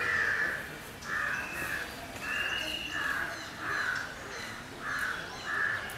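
A crow cawing repeatedly: a string of short harsh caws, roughly one every half second to second.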